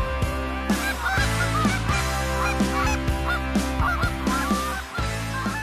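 Goose honking: a fast string of short, rising and falling honks and clucks starting about a second in, over background music with a steady beat.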